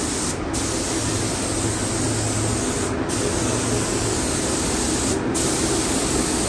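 Air-atomising gravity-feed spray gun laying a coat of self-etching primer: a steady hiss of air and paint that dips briefly three times. A steady low hum runs underneath.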